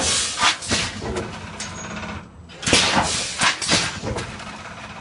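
Vertical rice packing machine with gusset bags running through its bagging cycle: two bursts of clattering mechanical noise with sharp clacks, about three seconds apart, with a short lull between them.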